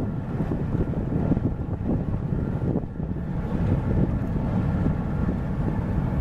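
Wind gusting on the microphone over the low, steady rumble of the cruise ship MS Artania passing close by.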